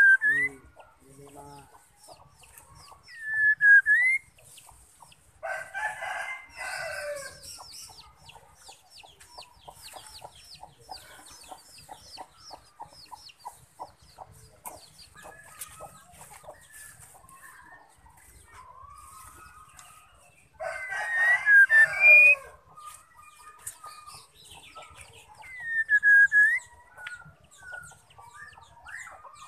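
Female white-rumped shama giving short, dipping whistled calls every few seconds, with a rapid ticking chatter in between. A rooster crows twice, each crow about two seconds long and louder than the shama.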